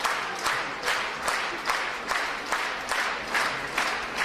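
Theatre audience applauding, clapping together in a steady rhythm of about two and a half claps a second.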